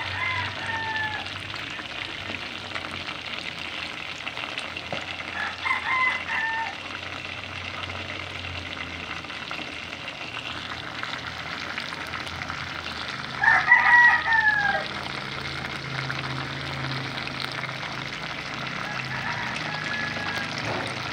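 Chicken pieces deep-frying in oil, a steady sizzle. A rooster crows about four times over it, loudest about two-thirds of the way through, each crow falling in pitch at the end.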